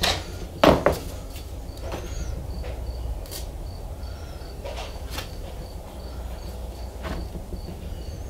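Knocks and clunks of a glue bottle and oak strips being handled as wood glue is squeezed onto the strips, the loudest clunk about a second in. A faint, high chirp repeats about three times a second over a low, steady hum.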